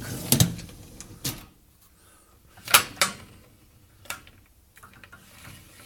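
Dishwasher racks being slid in and out on their runners, giving a handful of sharp metallic clatters and knocks, the loudest near the start and about three seconds in.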